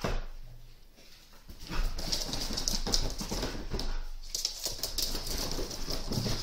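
A sudden thump, then from about two seconds in a busy, continuous pattering and scrabbling of dog claws on a laminate floor as a husky and her puppies run about.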